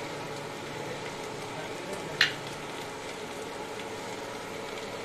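Steady hiss and low hum, with one sharp click a little over two seconds in.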